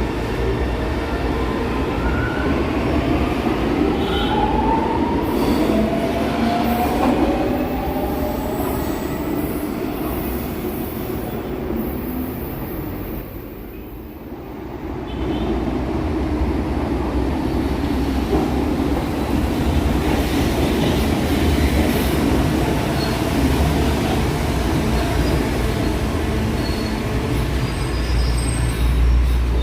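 São Paulo Metro Line 1-Blue trains running at the station: steady rumble of wheels on rail, with an electric traction-motor whine rising in pitch over the first several seconds. The noise dips briefly around the middle, then a train's rumble builds again.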